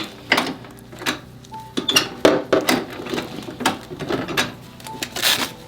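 Irregular clicks, knocks and rustling from handling a patient and equipment on a chiropractic treatment bed, with a brief louder rustle near the end.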